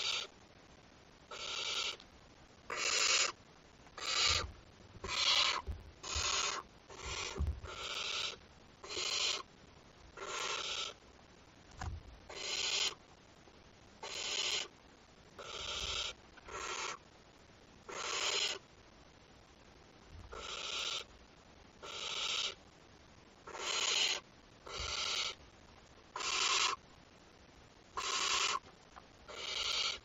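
Barn owl nestling giving its rasping, hissing 'snoring' call over and over, about once a second. This is the call owlets use to beg for food. A few faint low knocks from movement in the nest box come between the calls.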